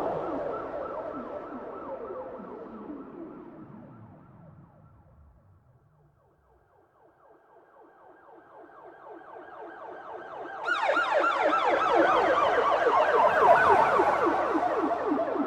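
Police siren in a rapid, repeating up-and-down wail that fades away to near silence about six seconds in, then swells back. About eleven seconds in it jumps suddenly louder and brighter.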